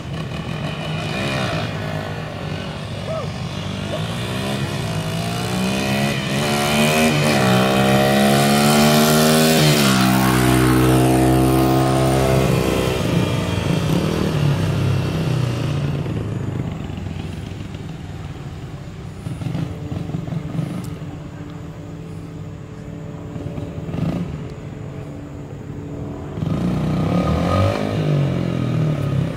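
Dirt bike engine revving as it accelerates, its pitch climbing for several seconds, then dropping and holding at a lower pitch about ten seconds in before fading as it rides away. It comes back louder near the end.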